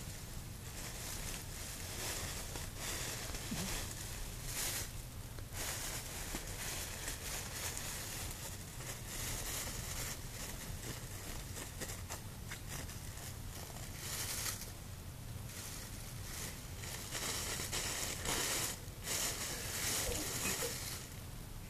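Thin plastic shopping bag crinkling and rustling in irregular bouts as a cat licks it and pushes its head around inside it.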